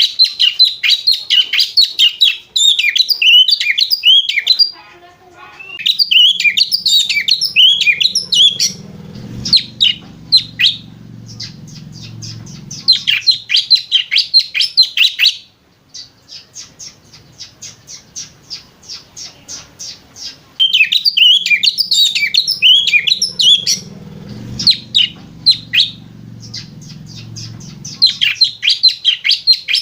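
Oriental magpie-robin (kacer) singing in fast chattering bursts of high chirps, the twittering "ngriwik" that sounds like a lovebird, broken by short pauses. Midway it gives an even run of quick notes, about four a second.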